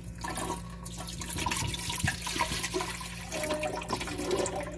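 Drinking water being poured into a Nespresso machine's water tank, a steady splashing pour that fills the tank.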